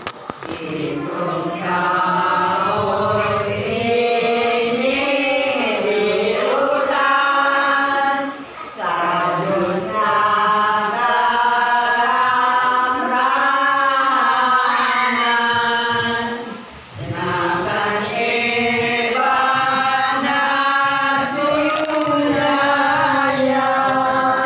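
A congregation of voices, mostly older women's, singing a Gozos, a Filipino devotional hymn, together in long phrases, with short pauses for breath twice along the way.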